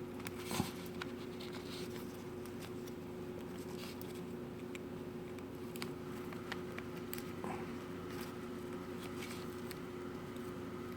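Scattered small clicks and light handling noises from working a key fob remote's plastic case and coin battery, the sharpest click about half a second in. A steady low hum runs underneath.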